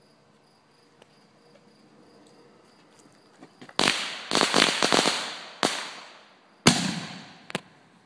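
Faint insects chirring steadily, then consumer fireworks going off about four seconds in: a quick string of sharp crackling pops, followed by three single bangs, each with a short fading tail.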